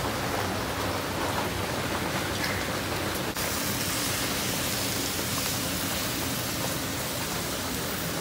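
Heavy rain falling steadily, an even continuous hiss.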